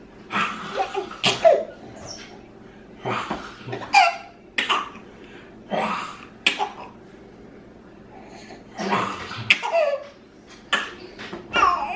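A baby laughing and squealing in reply to an adult's sharp, noisy vocal outbursts, in about ten short bursts.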